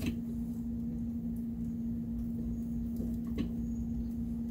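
A steady low hum, with two faint clicks of metal hardware as the A-arm bolts are fitted: one near the start and one about three and a half seconds in.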